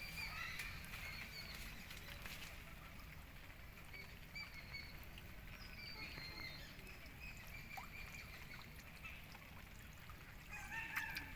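Quiet rural outdoor ambience: a low steady rumble with scattered short high chirps and a few faint clicks.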